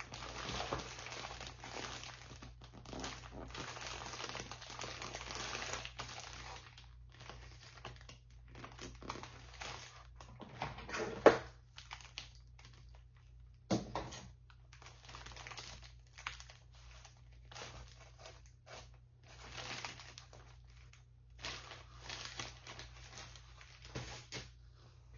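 Hand-handled wrapping crinkling and rustling in irregular bursts, heaviest in the first few seconds, with a sharp click about eleven seconds in and another near fourteen.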